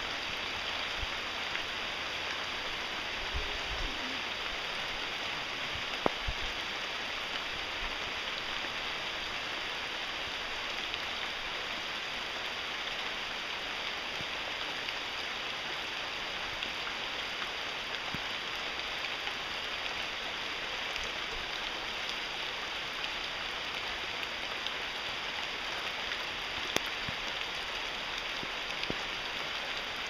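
Steady rain falling on rainforest foliage, an even hiss with a couple of sharp drops or taps standing out, one about six seconds in and one near the end.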